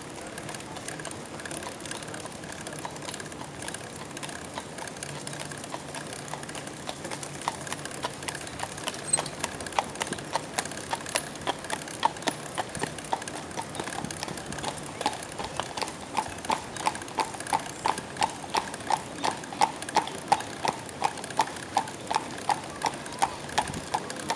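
Carriage horse's hooves clip-clopping on a paved road in a steady, even beat of about two to three hoofbeats a second. The beat is faint at first and grows louder over the second half.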